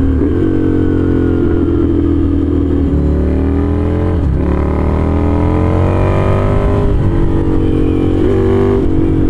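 Ducati Scrambler's V-twin through a very loud full aftermarket exhaust, the rider working the gears: the engine's pitch climbs as it pulls, with breaks where it changes gear about three, four and seven seconds in.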